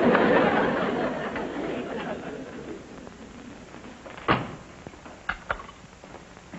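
Audience laughter swelling after a punchline and fading away over about three seconds. It is followed by a single sharp knock about four seconds in and two lighter clicks just after.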